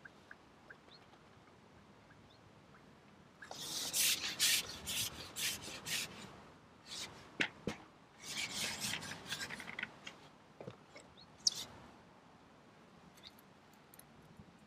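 Carbon fishing pole rubbing and scraping as it is handled and shipped back over its rest, in two stretches of a few seconds each starting a few seconds in, with a few sharp clicks.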